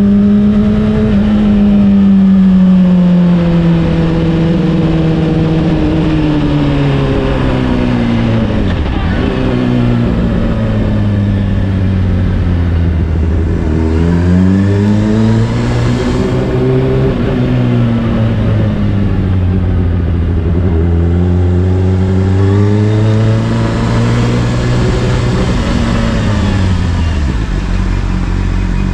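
Honda CBR600RR inline-four running through an Akrapovic exhaust while riding, its engine note rising and falling several times as the rider opens and closes the throttle.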